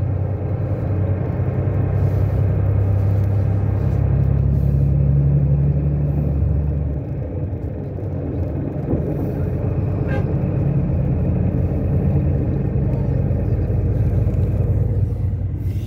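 Steady low rumble of a road vehicle's engine and tyres at highway speed, heard from inside the moving vehicle, easing slightly about seven seconds in.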